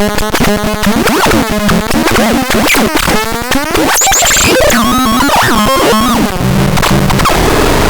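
ROAROR electronic noise instrument making harsh, stuttering synthesized tones that sweep quickly up and down in pitch. After about six seconds it turns into a coarser, buzzing, stepped drone with growing hiss.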